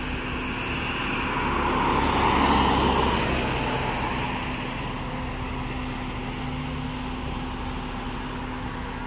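Road traffic: a vehicle passes by, swelling and fading about two to three seconds in, over a steady hum.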